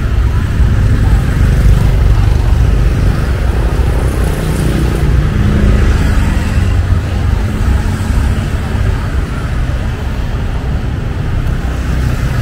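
Street traffic noise: vehicle engines running and passing in a steady low rumble, with an engine hum in the middle.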